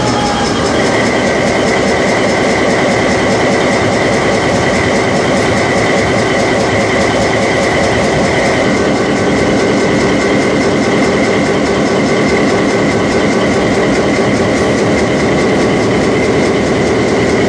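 Diesel engine of locomotive WP913 running steadily, heard from inside the engine compartment while the locomotive rolls along the track. A steady high whine sits over the engine from about a second in.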